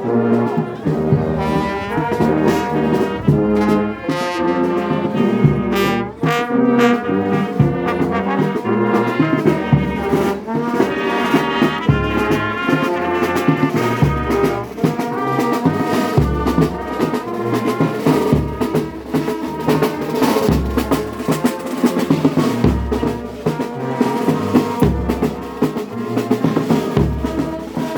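A brass band playing: trombones and trumpets carry the tune in harmony over a steady drum beat.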